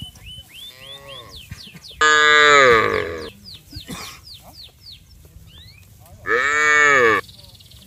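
Cattle mooing twice, two loud drawn-out calls that fall in pitch, the first about two seconds in and the second near the end. Short high falling chirps run between the calls.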